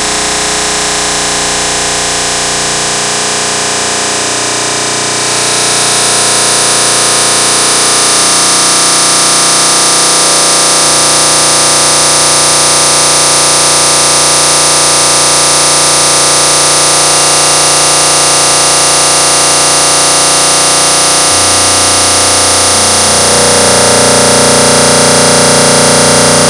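Harsh experimental noise soundtrack: a dense, loud drone of many held tones under a wash of hiss, shifting abruptly every few seconds. About five seconds in the high hiss grows louder, and the low notes change step by step further on.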